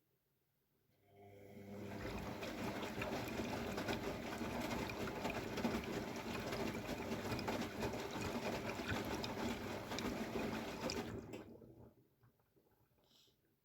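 Water running into an AEG Lavamat W 1450 washing machine, typical of a rinse fill. It swells in about a second in, runs steadily for about ten seconds, then stops abruptly as the inlet valve closes.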